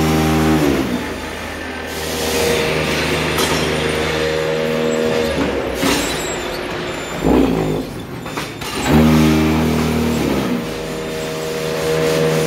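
Concrete paver block-making machine cycling: its motors hum loudly in spells and wind down in pitch each time they stop, twice, with a few sharp metal clanks from the mould and pallet partway through.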